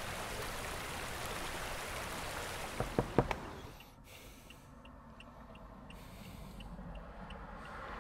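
A steady rushing hiss with a few sharp knocks about three seconds in fades out by about four seconds. It leaves the quiet of a car interior with a faint, regular ticking about twice a second.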